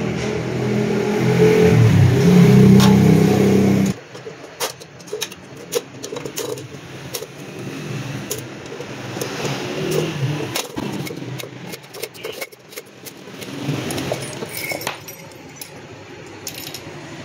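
About four seconds of a loud steady drone with several held pitches, which cuts off abruptly. After it comes a series of sharp metallic snaps and clinks as the steel spokes of a 72-spoke motorcycle wheel are cut through with bolt cutters and the loose spokes rattle against each other.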